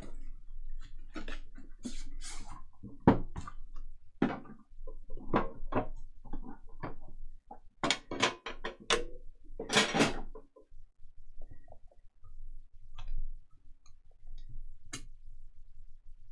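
Cardboard trading-card box being handled: irregular knocks, scrapes and rustles of cardboard against hands and the table as it is turned over, set down and squeezed open, with a denser run of louder scrapes about eight to ten seconds in.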